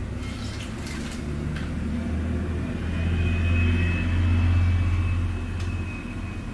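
A low rumble that swells and eases, loudest about halfway through, with a few brief splashes near the start as a canary bathes in a bowl of water.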